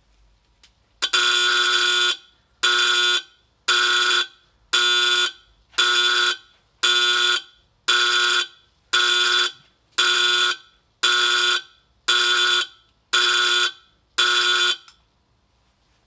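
Edwards 51R-N5 Adaptabeacon warning beacon's built-in alarm horn sounding in harsh, buzzing pulses, about one a second. The first blast is longer, and thirteen blasts in all stop shortly before the end.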